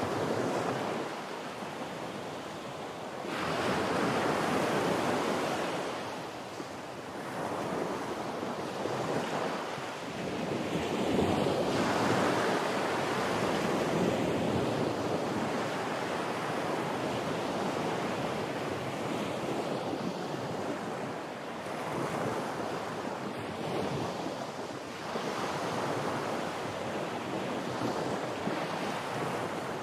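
Ocean surf and wind: a steady rushing noise that swells and eases every few seconds as the waves come in.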